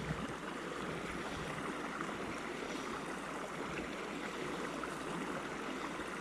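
Mountain creek water running, a steady, even rush.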